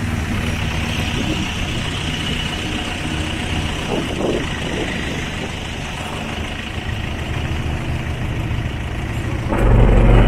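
A small boat's motor running steadily under way, with water rushing along the hull. The engine gets louder near the end.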